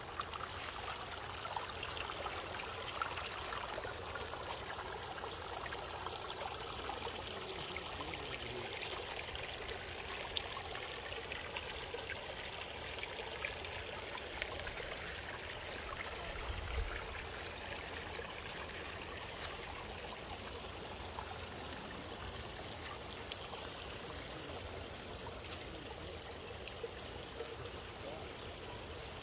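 Small backyard stream trickling, a steady water sound.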